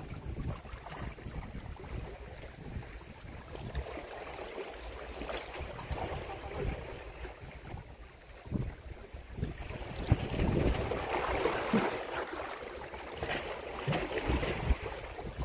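Wind buffeting the microphone with small waves washing against a rocky shore; the wash grows louder and fuller about ten seconds in.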